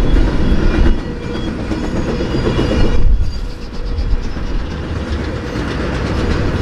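Intermodal freight train's flatcars loaded with truck trailers rolling past: a steady heavy rumble of steel wheels on the rails with a clickety-clack of wheels over the rail joints.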